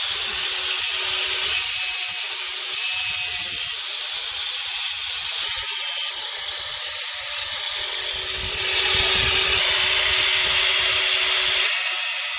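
Abrasive work on the steel of a hand saw: a harsh, hissing scrape in spells of one to two seconds, the longest and loudest spell about two-thirds of the way through, with a faint steady hum under some spells.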